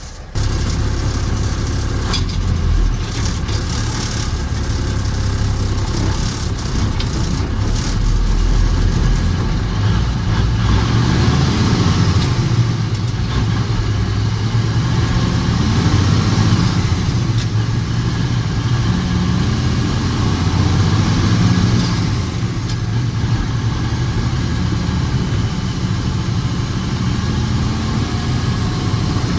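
Autocar truck's diesel engine running steadily as the truck drives, with road noise over it; the sound comes in suddenly about half a second in.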